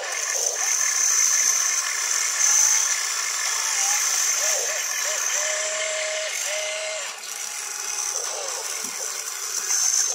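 Small electric motors of a radio-controlled excavator whining as the boom, arm and bucket work and the upper body swings, the pitch rising and falling with each movement.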